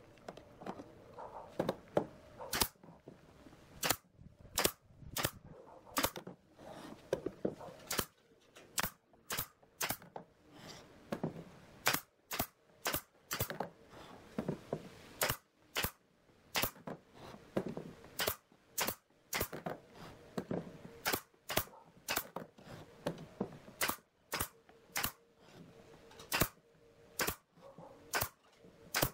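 Pneumatic brad nailer firing again and again, driving brads into pallet-wood slats: sharp snapping shots at an uneven pace, roughly one or two a second.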